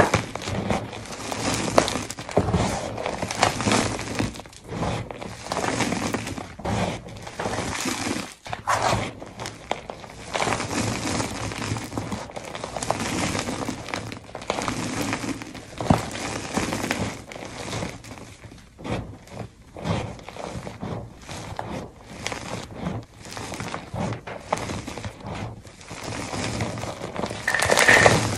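Blocks of gym chalk crushed and crumbled by hand, with powder and crumbs falling onto a heap of chalk: dense, irregular crunching and crackling, with a louder crunch near the end.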